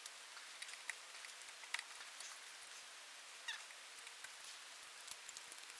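Scattered faint clicks and light taps of small parts and screws being handled and fitted while the chainsaw's breaker-point ignition is put back together, over a steady faint hiss.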